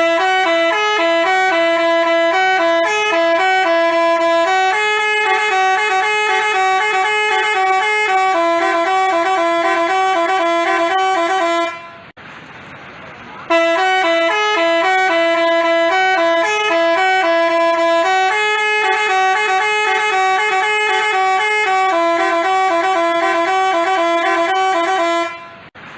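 Basuri telolet bus horn playing a multi-note melody of stepping horn tones, a phrase of about twelve seconds that stops briefly about halfway through and then plays again the same way.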